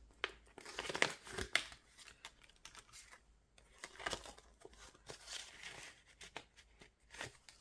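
Clear plastic binder envelope rustling and crinkling as a card is slid into it, in a string of short, irregular crackles.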